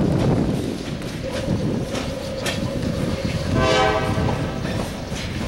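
Freight train tank cars rolling slowly past, with a steady rumble and wheels clacking over the rail joints. A short train horn blast sounds about three and a half seconds in.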